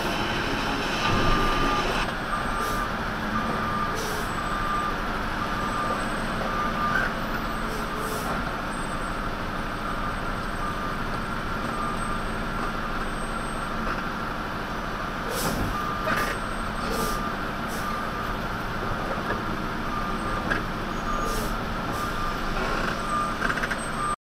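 Vehicle reversing alarm beeping at an even pace from about two seconds in, over a truck engine running. A few light knocks come in the second half.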